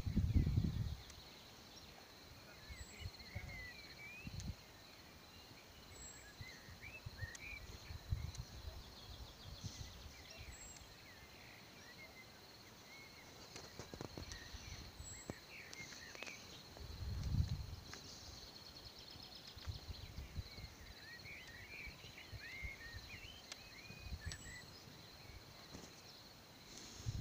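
Quiet outdoor evening ambience: a steady high-pitched insect trill with scattered clusters of small birds twittering. Low rumbles of wind or handling on the phone microphone come at the start, about eight seconds in, and most strongly about seventeen seconds in.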